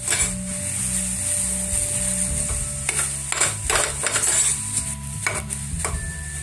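Metal spatula stirring and scraping a tomato-onion masala with ground spices in a stainless steel frying pan. The paste sizzles in hot oil while it is fried down. Several sharp scrapes of the spatula against the pan come in the middle and near the end.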